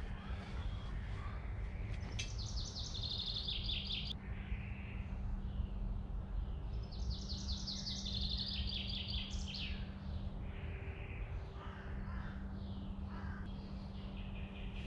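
Songbirds singing: twice a bird gives a high song of rapidly repeated notes lasting about two seconds, with fainter bird calls in between, over a steady low hum.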